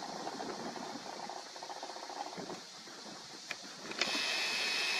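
Outdoor lakeside ambience: wind rustling through reeds with a soft hiss and a few faint ticks. About four seconds in, a steadier, louder high-pitched buzz joins in.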